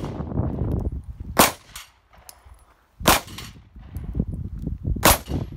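Semi-automatic pistol fired outdoors at steel targets: three loud shots about one and a half to two seconds apart, with a fainter crack just after the first. Wind rumbles on the microphone between the shots.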